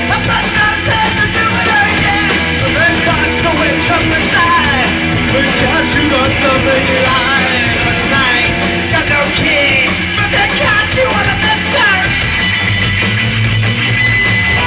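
Punk rock band playing live and loud: electric guitars and drums with a singer yelling into the microphone. The vocals drop out near the end and the band plays on with a low held note.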